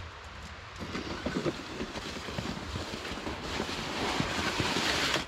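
Wind-like rushing noise that grows louder over a few seconds and cuts off suddenly, with irregular rustling underneath.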